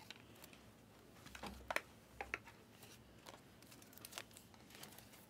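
Faint, scattered light clicks and rustles of trading cards and card packs being handled.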